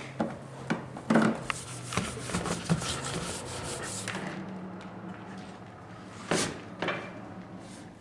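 Workshop handling noises: rubbing and scraping of materials on a bench with scattered light knocks, over a steady low hum of shop equipment. A sharper scrape or hit comes about six seconds in.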